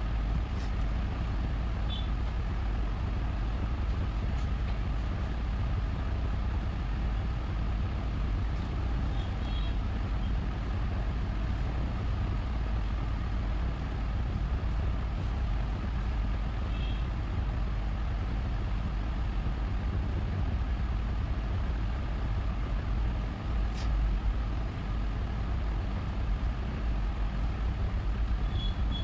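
Steady low rumbling background noise, with a few faint short high chirps now and then and a single sharp click about two-thirds of the way through.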